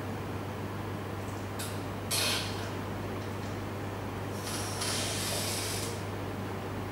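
Steady low hum under background noise, with a short hiss about two seconds in and a longer hiss from about four and a half to six seconds.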